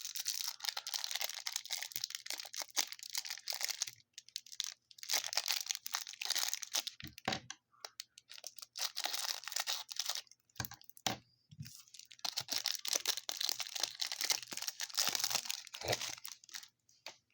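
Cardboard and wrapper of a trading-card hanger box being torn open and crinkled by hand, in four long stretches of tearing and rustling with a few light knocks in between.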